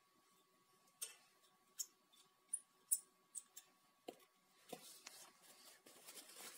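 Small metal clicks of a screwdriver and loose screws being handled while the pump's cover screws are taken out: about eight sharp, irregular clicks, then a soft rustling near the end.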